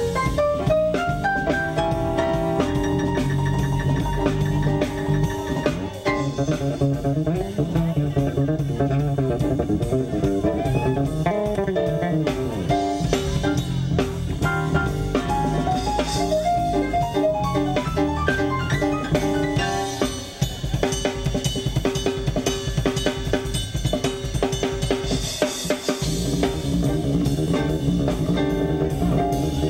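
Live blues band playing without vocals: a drum kit keeps a steady beat with snare rimshots and cymbals under electric guitar and keyboard lines, opening with a quick rising run of notes and dipping briefly about twenty seconds in.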